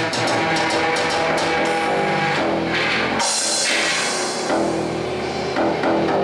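Live improvised noise music: an electric guitar plays held, droning notes among other layered sounds. A burst of hissing noise comes in about three seconds in and fades a second or so later.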